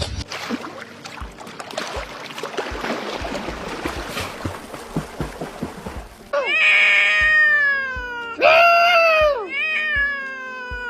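A cat meowing loudly twice, two long drawn-out meows that slide down in pitch, starting about six seconds in. Before them is a stretch of rustling noise with scattered clicks.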